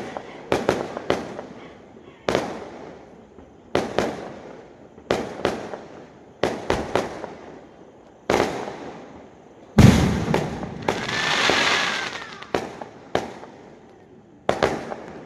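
Fireworks going off: a string of sharp bangs, one or two a second, each echoing away. The loudest, deepest bang comes near the middle and is followed by about two seconds of crackling.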